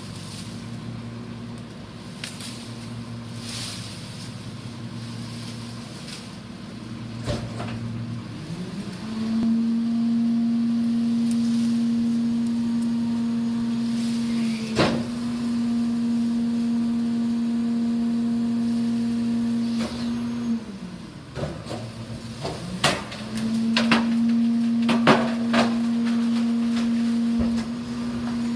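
Rear-loading garbage truck's diesel engine idling, then speeding up about eight seconds in to a steady higher drone as the hydraulic packer runs; it drops back briefly around twenty seconds in and rises again. Sharp cracks and snaps of tree branches being loaded and crushed cut across it, thickest near the end.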